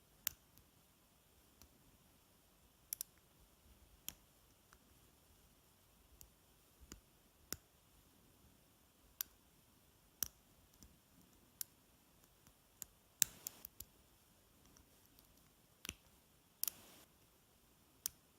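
Faint, sparse clicks of a lock pick and tension wrench working the pin stack of an American Lock padlock, about one tick a second, with two short scrapes of metal on metal late on as the pick drags along the keyway.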